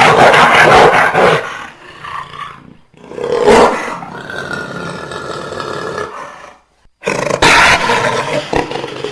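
Big cat roars and growls, three in a row: a loud roar at the start, a second rising about three and a half seconds in and trailing into a long growl, and a third starting abruptly after a brief silence near seven seconds.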